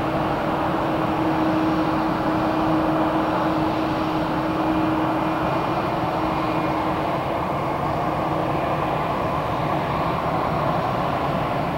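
Jet airliner engines running close by: a steady, loud noise with a low hum that fades away about two thirds of the way through.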